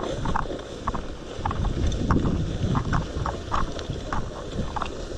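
Rumbling microphone noise on a body-worn GoPro, wind and handling, with irregular short scuffs and knocks of gear and clothing rubbing against the camera.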